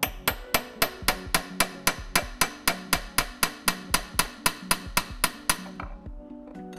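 Hammer striking a long thin metal tool set against the input-shaft seal plate inside a gearbox bell housing. It makes a fast, even run of sharp metallic taps, about four a second, for nearly six seconds, then stops.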